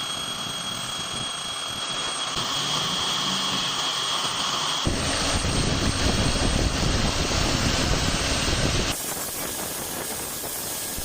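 Metalworking machine running with a steady noisy sound and a thin high whine in the first part. The sound changes abruptly twice: it gets heavier and rumbling about five seconds in, then lighter and hissing near the end.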